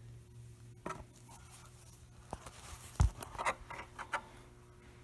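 Quiet handling noises as a rubber hump hose is worked onto the back of a plastic intake air box: a click about a second in, a low thump about three seconds in, then several short scrapes and rubs. A steady low hum sits underneath.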